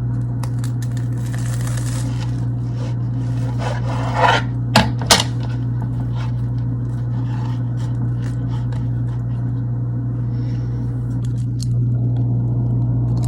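Scattered scrapes and clicks of a utensil against a frying pan, a few in the first five seconds, over a steady low hum.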